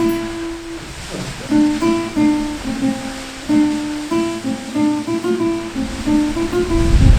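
Acoustic guitar music, plucked notes in a slow melody, over a faint steady hiss of rushing water.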